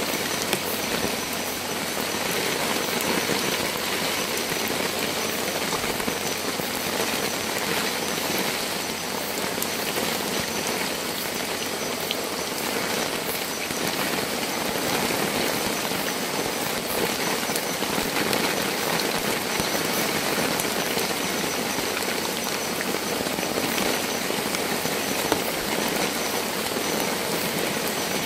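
Heavy rain falling steadily, with the fine ticks of many individual drops hitting the shelter.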